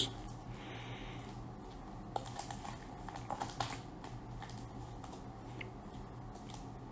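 Foil Pokémon card booster packs crinkling and clicking faintly as they are handled and shuffled in the hands, the small clicks thickest between about two and four seconds in.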